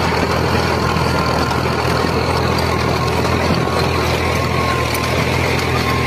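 A tractor engine idling steadily, an even low running hum with no change in pace.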